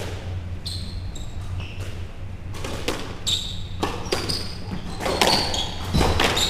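Squash rally: the ball cracking off rackets and walls in a string of sharp knocks starting about two and a half seconds in, with short high squeaks of court shoes on the wooden floor, over a steady low hum.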